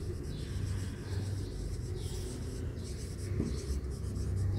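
Marker pen writing on a whiteboard: a run of short, scratchy strokes as words are written, over a low steady hum.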